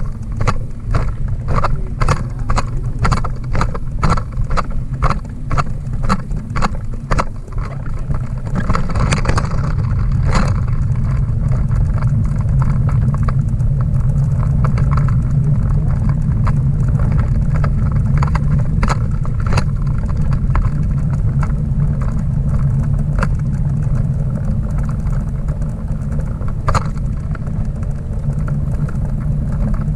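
Schwinn dog bike trailer being towed over the road, heard from inside: a steady, loud rumble of the wheels and frame, with sharp rattling clicks from the bumps, about twice a second for the first several seconds, then only now and then.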